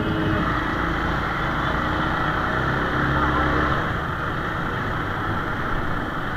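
Motorcycle riding slowly through traffic: the engine running steadily under a haze of wind and road noise.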